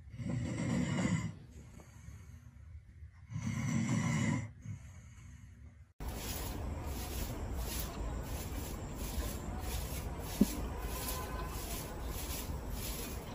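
A sleeping dog snoring: two long snores about three seconds apart. Then rhythmic swishing strokes on dry ground, about one and a half a second, with one brief rising chirp about ten seconds in.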